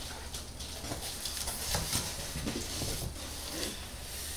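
Cardboard boxes being handled: flaps and packages rustling and bumping, with scattered light knocks.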